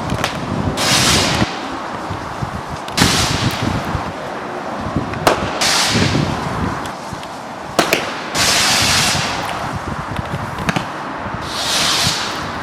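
Consumer firework combo firing: sharp cracks of shots going off, each followed by a crackling, hissing burst, about five in all, one every two to three seconds.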